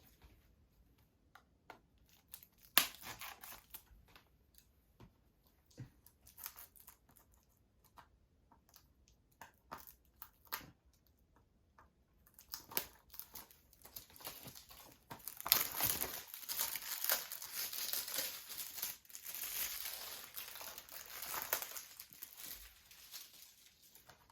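Plastic shrink-wrap on a Blu-ray case being torn and peeled off by hand: scattered small clicks and handling noises first, then a long stretch of crackly crinkling from about halfway through as the wrapping is stripped and crumpled.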